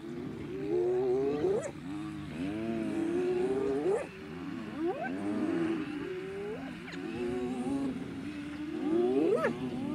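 Several spotted hyenas calling over one another: moaning calls that bend up and down, broken by about five sharply rising whoops.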